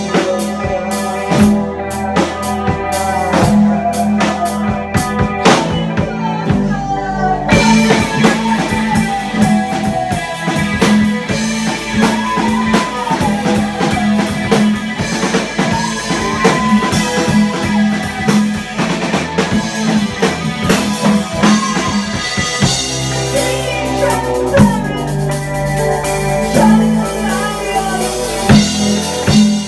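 Rock band playing live in a room: drum kit, electric guitar and bass guitar. About seven seconds in the cymbals come in heavier, a wavering melody line rises and falls through the middle, and the bass line changes about twenty-two seconds in.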